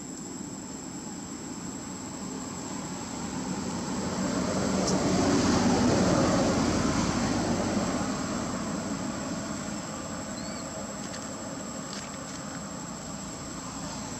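Engine noise passing by, swelling to a peak about six seconds in and fading away by about nine. A steady, high insect drone runs underneath.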